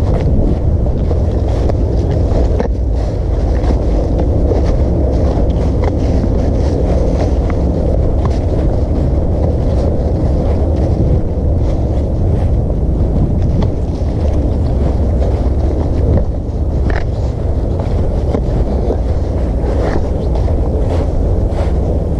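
Wind buffeting the camera microphone: a loud, steady low rumble, with faint crunches of footsteps in dry fallen leaves now and then.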